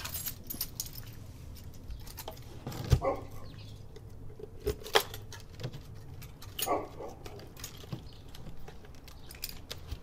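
Keys jangling while the hatch of an RV's exterior power-cord compartment is shut and locked with a key, with a few sharp knocks and clicks, the loudest about three and five seconds in.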